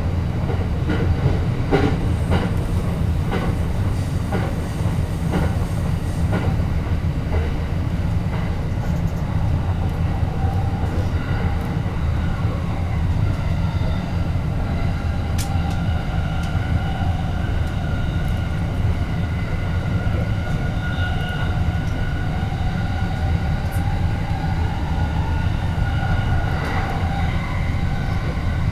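Train running: a steady low rumble, with wheels clicking over rail joints for the first several seconds, then a faint whine that slowly drifts in pitch.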